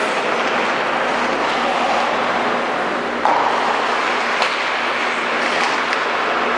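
Hockey rink ambience: a steady hiss with a faint low hum, broken by a few sharp knocks of sticks and puck, the loudest about three seconds in.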